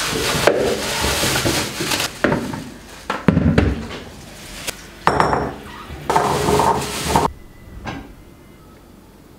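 Kitchen handling sounds: irregular knocks and clatter of dishes and containers being set down and moved, mixed with scraping and rustling, stopping about seven seconds in.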